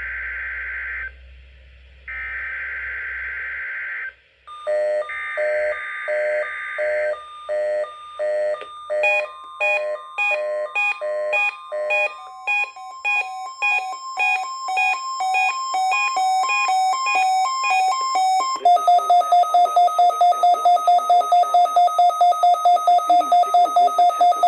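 NOAA Weather Radio SAME header data bursts, harsh warbling digital tones sent in a burst of about two seconds, repeated, while a weather alert radio starts beeping its alarm for the Required Weekly Test. A steady warning tone joins about nine seconds in and stops about ten seconds later. After that the radio's alarm beeps fast and loud, about four beeps a second.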